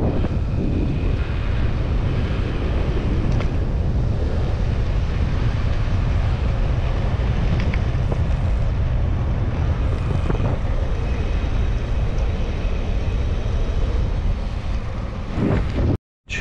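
Wind buffeting the microphone of a camera on a moving road bicycle: a steady low rush with no break.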